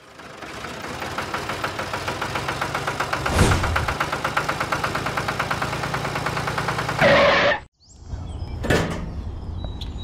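Small motor of a homemade toy tractor running, a steady pulsing whir that builds up over the first second, with a knock partway through and a louder rattle near the end before it cuts off abruptly. A brief clink follows.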